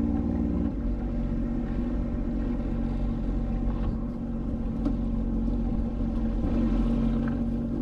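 Sea-Doo Fish Pro 170 jet ski's Rotax three-cylinder engine running steadily at low speed, creeping up to a crab pot buoy.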